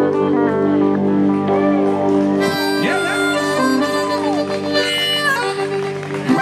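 Harmonica played cupped against a microphone, its notes bending up and down in pitch, over sustained electric guitar chords in a live blues band.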